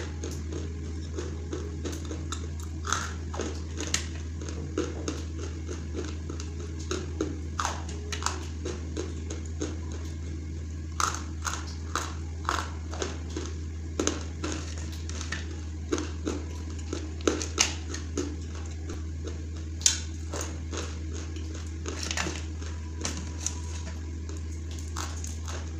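Chunks of Hyderabadi khadi clay being broken off and bitten, giving sharp, crisp crunches at irregular intervals of about one or two a second. A steady low hum runs underneath.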